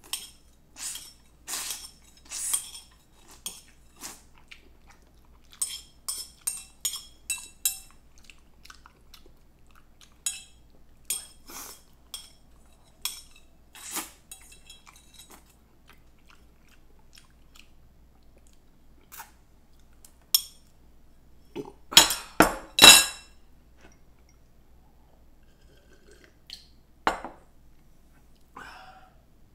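Ramen eating: cutlery clinking and tapping against a bowl in scattered short strikes, with chewing between them. The loudest clinks come in a quick cluster about twenty-two seconds in.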